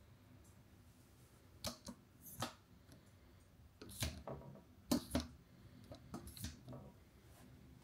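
Vacant/occupied slide indicator on a wooden door pushed across by a finger: a few short sharp clicks and scrapes, the loudest about four and five seconds in.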